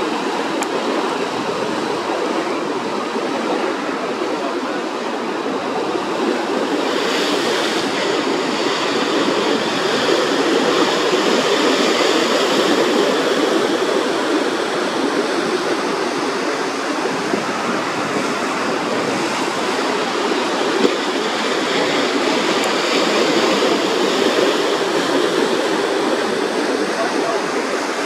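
A steady rushing noise with no distinct bird calls, getting a little hissier about a quarter of the way in, and one brief click about three-quarters of the way through.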